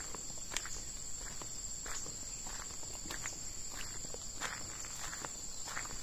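Footsteps walking at a steady pace on a dirt path strewn with dry leaves, over a steady high-pitched drone of insects.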